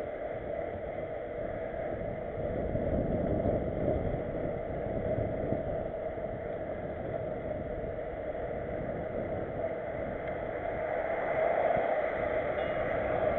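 Wind rushing over the microphone of a camera riding on a mountain bike, with tyres rolling on asphalt and rattles of the bike, bumpier around the middle as it crosses railway tracks.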